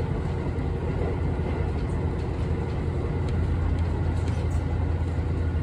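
Steady low rumble of a moving train heard from inside the carriage: wheels running on the rails.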